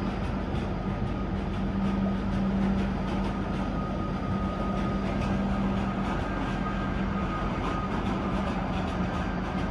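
Train running on the rails: steady running noise with a constant low hum and a faint higher whine, and light clicks from the wheels.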